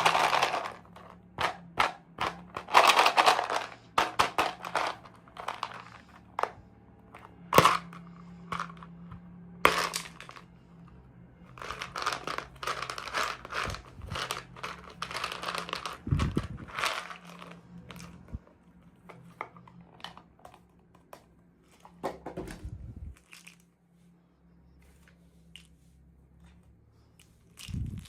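Toy packaging crinkling and rustling in irregular bursts by hand, with many sharp clicks and taps, as a miniature toy is unwrapped.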